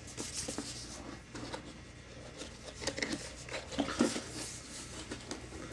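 Cardboard packaging being handled by hand: scattered rustles, scrapes and light knocks as a box is turned over and searched.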